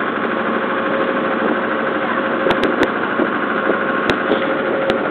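Small river ferry boat's engine running steadily under way, with a steady hum and a few sharp clicks about two and a half and four seconds in.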